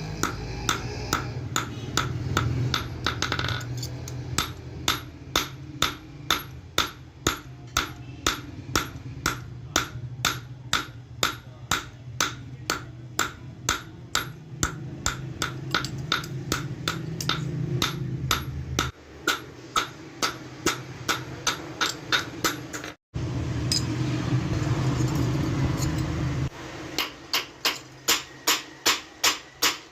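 Hand hammer striking hot steel on an anvil in a steady rhythm of about two ringing blows a second, in hand-forging a cobbler's tool. The blows stop for a few seconds near the end, where only a steady noise is heard, then resume.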